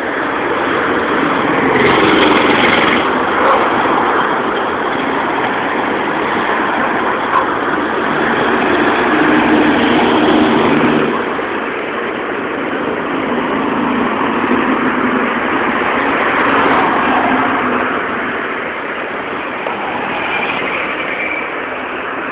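Steady road and engine noise of a moving taxi, heard from inside, swelling and easing as it drives along.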